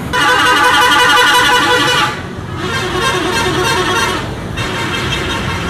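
A tour coach's multi-tone musical 'telolet' horn plays a warbling tune in three bursts of about two seconds each, with short breaks between.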